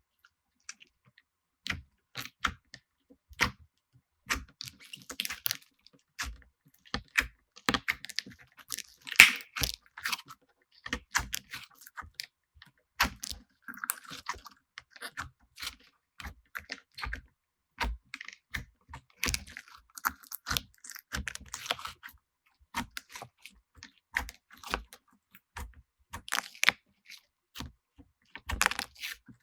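Slime being pressed, poked and stretched by hand, giving a run of irregular sharp clicks and crackling pops with soft squishes between them.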